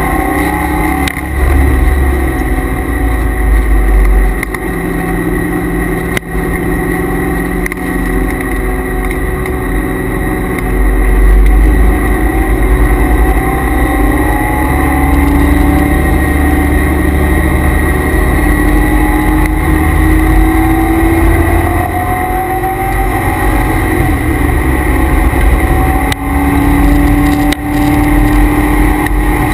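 Inside the cabin of a C5 Corvette Z06 at track speed: its LS6 V8 revs climb and drop again and again as it pulls through the gears and lifts for corners. A steady high whine runs underneath, which the owner puts down to the noisy transmission and differential coolers.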